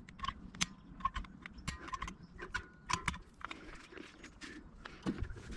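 Irregular sharp clicks and knocks, several with a brief ringing ping.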